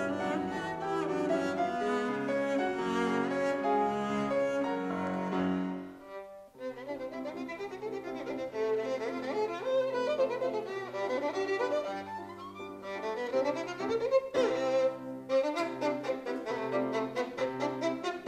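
Classical chamber music on bowed strings: a cello passage that breaks off about six seconds in, then a new passage of violin with piano.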